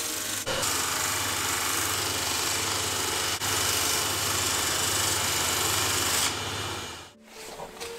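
Bench-mounted electric sanding wheel running, with a curly birch pipe bowl pressed against the spinning disc: a steady motor hum under a hissing sanding noise. It dies away near the end.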